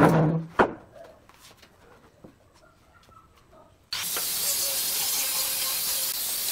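Wooden pallets knocking against each other as one is pushed into place, then about four seconds in an angle grinder with a sanding disc starts abruptly and runs steadily, hissing as it sands the pine pallet slats.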